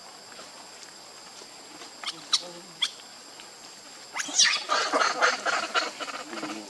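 Macaque screaming in a run of harsh, rapid squeals that starts about four seconds in and is the loudest sound, after a few short high squeaks about two seconds in. Insects drone steadily throughout on two high tones.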